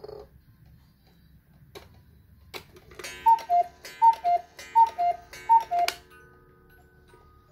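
Musical cuckoo clock striking four o'clock: a few clicks from the works, then four two-note cuckoo calls, a high note then a low one, about three-quarters of a second apart. Just after the last call the clock's music box begins its tune.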